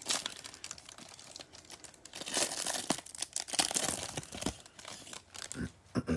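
Clear cellophane wrapper being torn and peeled off a stack of trading cards, crinkling and crackling, loudest in two spells about two and four seconds in.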